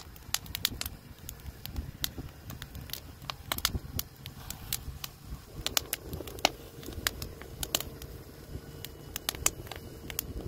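Burning wood logs crackling and popping in an open fire, with irregular sharp snaps over a low rumble.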